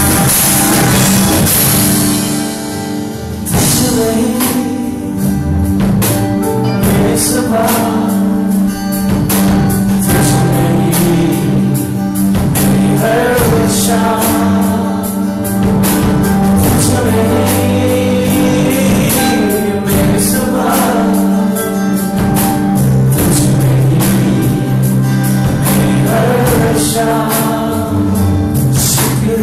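Live band playing: a man singing over acoustic guitar, electric bass, drum kit and keyboard. The band thins out briefly about three seconds in, then the drums come back in and the full band plays on.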